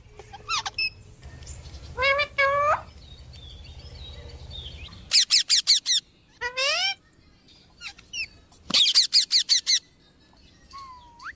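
Parrot calling. It gives two loud strings of rapid, harsh chirps, about five or six a second, and between them short rising squawks.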